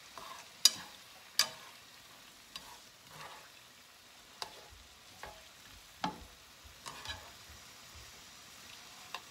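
Chopsticks tossing shredded coconut in sugar syrup in a nonstick frying pan, clicking against the pan about once a second, loudest twice near the start, over a faint steady sizzle of the syrup cooking down for coconut jam.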